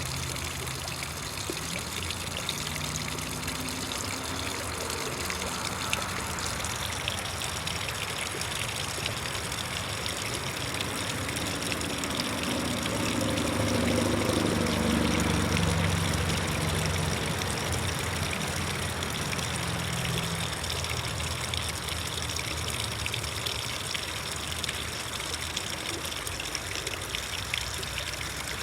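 Steady trickling, splashing water, with a low hum that swells and fades about halfway through.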